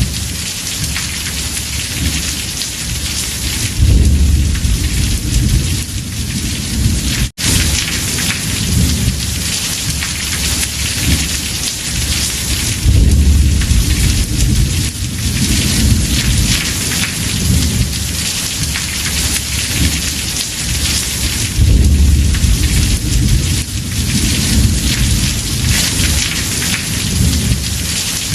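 Heavy rain drumming steadily on a house roof, with rolling thunder rumbling up in three swells, about four, thirteen and twenty-two seconds in. The sound drops out for an instant about seven seconds in.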